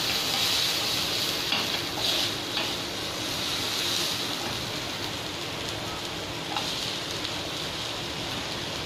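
Chopped onion and garlic sizzling in oil in a nonstick frying pan, with a steady frying hiss, while a silicone spatula stirs them.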